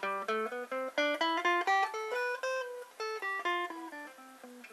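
Stratocaster-style electric guitar playing a quick run of single picked notes, about four or five a second, that climbs in pitch and then comes back down. The picking hand moves along the strings between the neck and the bridge as it plays, which shifts the tone between dark and deep and bright and twangy.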